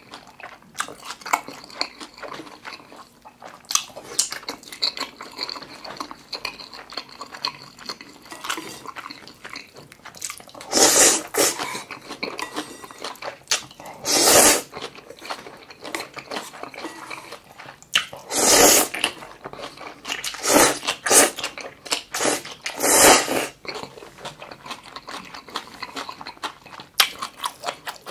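Close-miked eating of spicy buckwheat noodles: wet chewing with small mouth clicks, broken in the middle by about five loud, short slurps of noodles.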